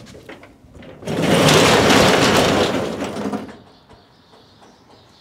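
Garage door being raised: a loud rattling run of about two and a half seconds that starts about a second in and dies away.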